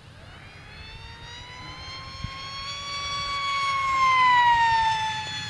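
Fun Jet, an electric radio-controlled model jet, flying past with a high whine from its pusher motor and propeller. The whine grows louder to a peak about four seconds in, and its pitch drops as the jet passes.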